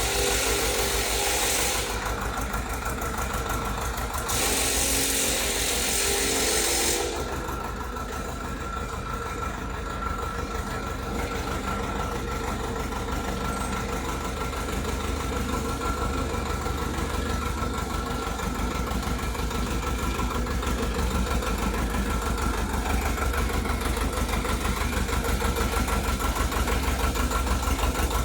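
Crawler mini tractor's engine running with a rapid, even firing rhythm, with two stretches of hissing noise in the first seven seconds; the engine grows slightly louder toward the end.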